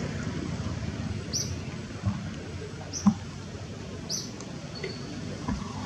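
Three short high-pitched animal squeaks, spaced a second or so apart, over a steady outdoor hiss. Two soft knocks come in between, about two and three seconds in.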